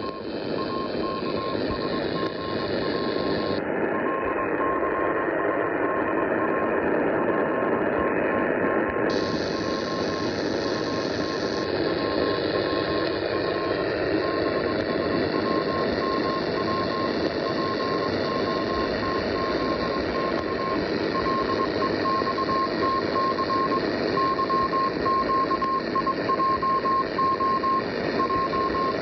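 Morse code received on an Eton E1 radio tuned to 2681 kHz: a single-pitch beep keyed in dots and dashes over loud static hiss. The hiss changes in brightness a few times in the first twelve seconds, turning duller and then brighter again.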